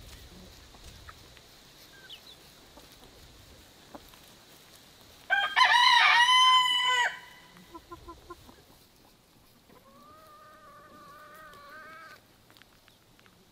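A rooster crows once, loud, about five seconds in and lasting nearly two seconds, followed by a few short clucks and a second, fainter drawn-out crow near the end.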